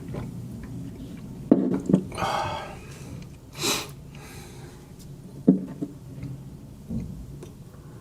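A person sipping coffee from a cup: two short slurping sips, with several sharp clicks and knocks of the cup being handled and set down, over a steady low hum.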